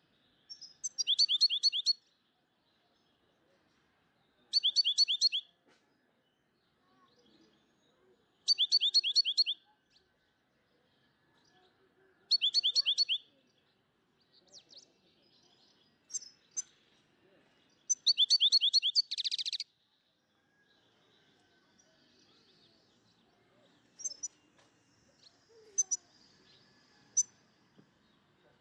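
A songbird chirping: five runs of rapid, high, repeated chirps, each about a second long and a few seconds apart, with a few single chirps in between.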